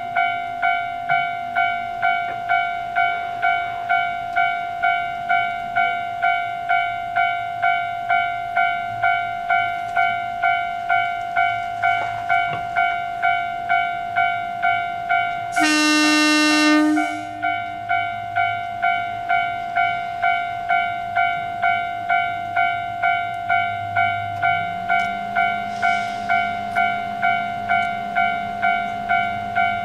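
Railway level-crossing alarm ringing evenly, about one and a half strokes a second, over the low idle of the Akechi 10 diesel railcar. About halfway through the railcar sounds its horn once for about a second, and near the end its diesel engine note rises and holds as it throttles up to pull away.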